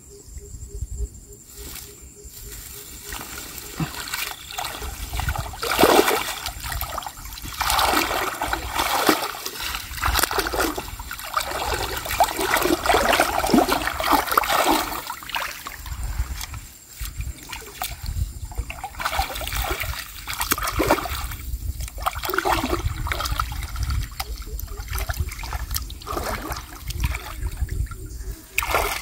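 Hands splashing and scooping in shallow, muddy marsh water, with irregular splashes and trickling, as a net fish trap is worked down into the water.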